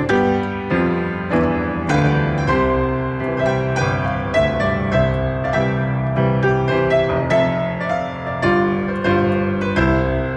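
Piano music for ballet, notes struck at an even, steady beat.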